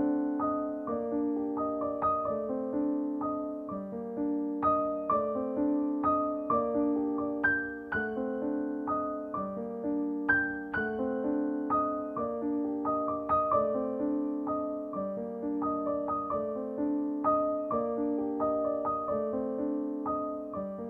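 Gentle background piano music: soft, struck notes in a steady, repeating melodic pattern.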